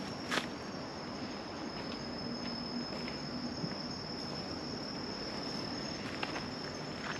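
Insects trilling in one steady, unbroken high-pitched tone, with a footstep crunching on a gravel path about half a second in and another near the end.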